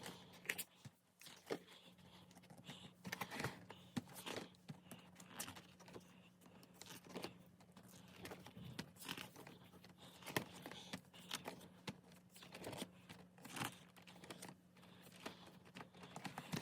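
Quiet, irregular rustles and soft clicks of stiff paper being handled as a desk calendar's photo pages are flipped over one by one, over a faint steady hum.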